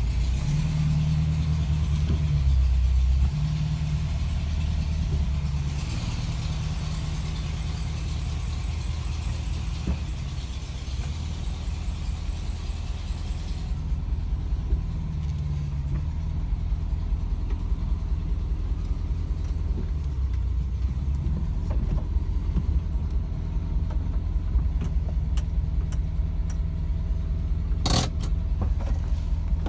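1967 VW Bus's air-cooled flat-four engine running as the bus drives slowly, a steady low pulsing drone. One sharp clunk near the end.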